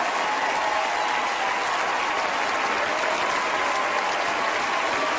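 Steady applause from a television studio audience.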